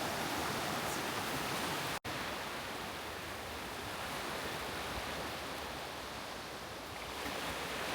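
Steady rush of sea waves washing onto a sandy beach, mixed with wind, cut off for an instant about two seconds in.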